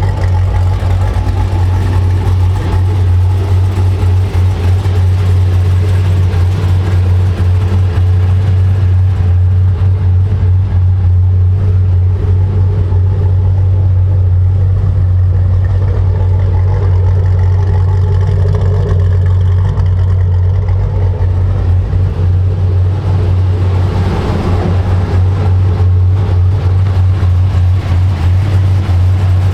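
Supercharged V8 of a 2010 Chevrolet Camaro 2SS on the road, holding a steady deep drone at cruise. It swells briefly as it picks up revs about three-quarters of the way through.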